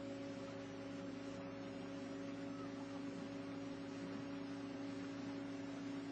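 Motor of a powered river canoe running at a steady speed, giving a steady, even hum.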